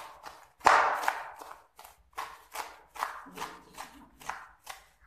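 Sharp kitchen knife chopping mustard greens on a wooden cutting board: a run of short knocks, about two or three a second, the first one the loudest.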